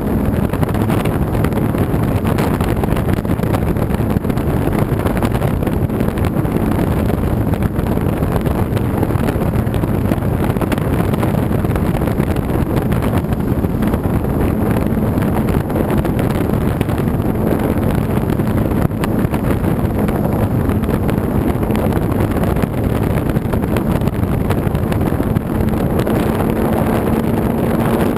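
RC model airplane's motor and propeller running steadily in flight, heard from an onboard camera just behind the propeller, with heavy wind rush over the microphone. The motor's hum rises slightly in pitch near the end.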